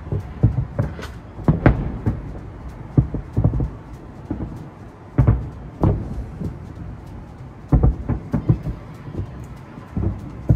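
Fireworks shells bursting in the distance: an irregular series of deep booms with rolling tails, some with a sharper crack, coming in clusters every second or two.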